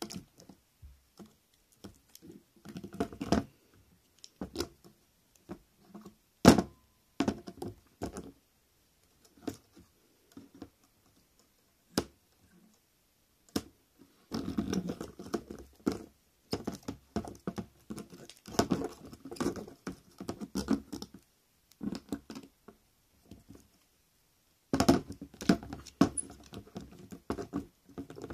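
Handmade model beetles with wire legs scraping, tapping and rattling against each other and on a plastic basin, in irregular bursts with short silent pauses, including a few sharp clicks.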